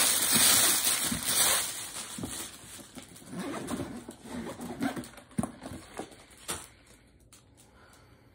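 Plastic packaging crinkling and rustling as an item is handled, loud for about the first two seconds, then giving way to scattered light taps and knocks that fade out.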